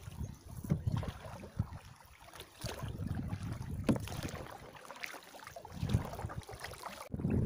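Wind rumbling and gusting on the microphone aboard a tandem sit-on-top kayak, with a few light splashes and drips from the paddle.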